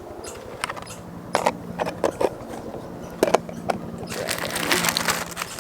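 Food being handled while sandwiches are put together: a string of light knocks and clicks, then about a second of crinkly rustling near the end, over a faint steady hum.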